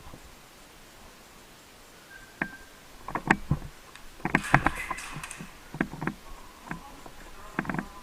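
Scattered sharp clicks and knocks, some single and some in quick runs of two or three, with a short stretch of rustling about halfway through.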